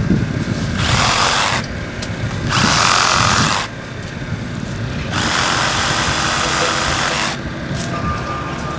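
Power saw cutting through small tree branches in three bursts, the last and longest running about two seconds.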